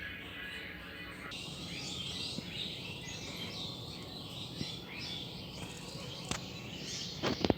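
Many birds chirping at once in a dense, overlapping chorus, with a few loud knocks just before the end.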